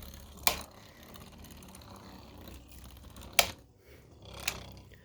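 Sharp plastic clicks from 3D printed Beyblade parts being handled, two louder ones about three seconds apart and a lighter one near the end, over a faint low hum.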